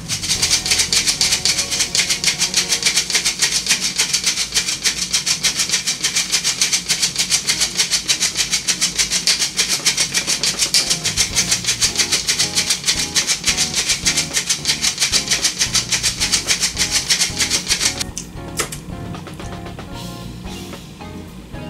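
Hand-held mesh flour sifter being worked over a cake, a fast, even metallic rasping of several strokes a second as powder is shaken through the screen; it stops suddenly near the end.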